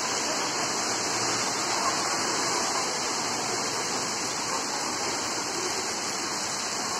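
Heavy rain pouring steadily onto wet paving, an unbroken dense hiss.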